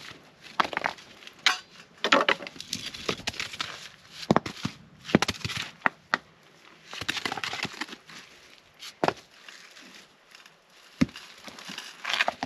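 Rocks being lifted and set down on a stone fire ring: irregular knocks of stone on stone with scraping of grit and dirt, and a shovel scraping into the dirt and ash near the end.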